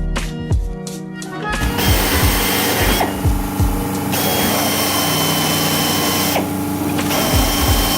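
A power tool running loudly with a steady high whine, starting about one and a half seconds in and changing pitch and tone twice, over background music with a steady beat.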